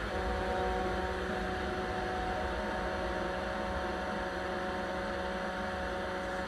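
A steady droning hum: an even wash of noise with a low rumble and several held tones in it, unchanging throughout.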